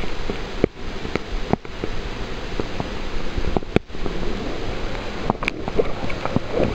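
River water rushing over an underwater camera: a steady wash of water noise with scattered sharp knocks, and the sound drops out briefly a few times.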